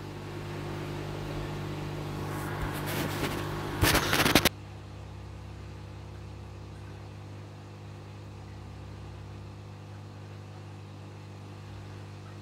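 Steady low electrical hum of aquarium equipment such as a filter pump. For the first four and a half seconds a rising hiss with a cluster of clicks lies over it and then cuts off abruptly.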